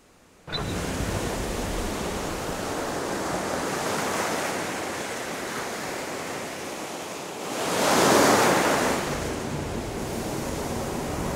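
Rushing water like surf, cutting in suddenly about half a second in after near silence, then swelling louder around eight seconds before easing back.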